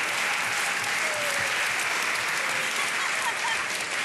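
Studio audience applauding steadily, with faint voices mixed in.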